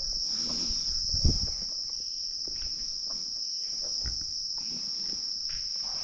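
Steady high-pitched drone of a chorus of insects, crickets or cicadas, with a soft thump about a second in.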